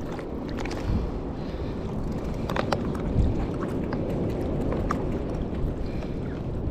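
Steady wind rumble on the microphone over lapping sea water, with a few light clicks.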